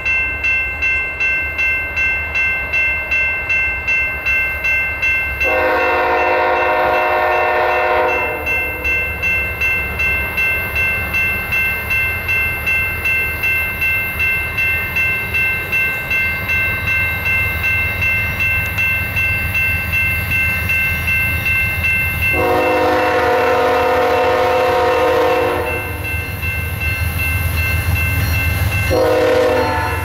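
Grade-crossing bell ringing about twice a second while the approaching GE ES44C4 locomotive BNSF 4211 sounds its horn: a long blast about five seconds in, another long one a little past twenty seconds, and a short one near the end. Underneath, the low rumble of the train grows louder as it nears.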